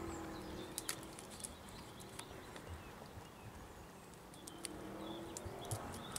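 Faint, scattered clicks and scrapes of a cat's claws on pine bark as it climbs the trunk. A short cat meow trails off at the very start and another comes about five seconds in.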